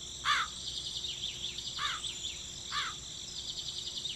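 Nature ambience: a steady high insect trill, like crickets, with a bird giving three short chirps.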